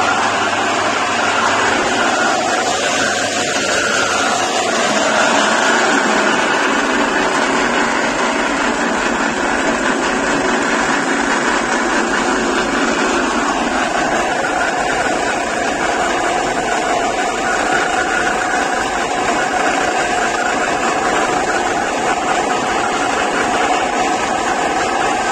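KL180 flat-die animal feed pellet mill with four rollers running under load, pressing oat husk and oat powder into pellets. A steady, loud machine noise with a faint held hum.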